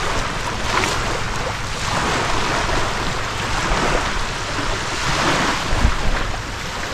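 Sea waves washing on the shore, a steady rushing noise, with wind rumbling on the microphone.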